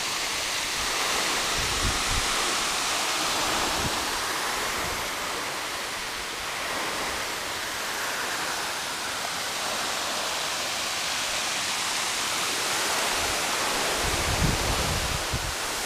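Steady rush of a 100-metre waterfall falling into its pool, with water running over the rocks below. A few low bumps come near the end.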